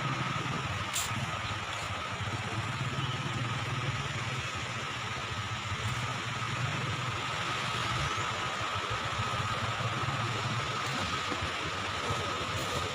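A small engine running steadily at an even pace under a constant rushing noise.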